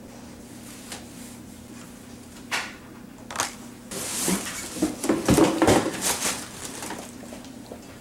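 Objects being handled: two sharp knocks, then a couple of seconds of rustling and clattering, over a low steady hum.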